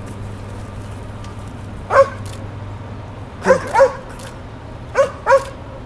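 Young Dutch Shepherd barking at a hidden person in a barrel, five short sharp barks: one about two seconds in, then two quick pairs. This is a search dog's bark alert on a concealed subject.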